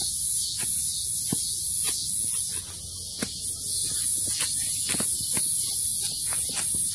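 Steady high-pitched insect chorus with a pulsing hiss, over scattered sharp crackles of footsteps on dry leaf litter.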